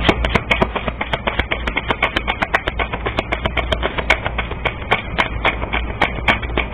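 Tarot cards being shuffled by hand: a quick, even run of card clicks, about five a second.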